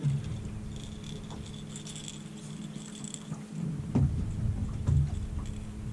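Steady motor hum from the fishing boat. Wind buffets the microphone in low rumbles, with the strongest gusts right at the start and around four and five seconds in.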